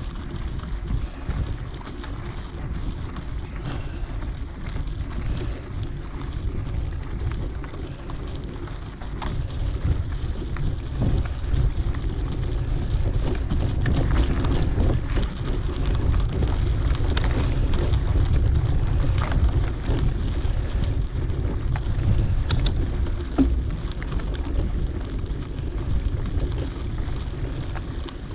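Wind rushing over the microphone of a mountain bike rider's action camera, with tyre rumble on the dirt trail and scattered small clicks and rattles. The rush gets louder about ten seconds in.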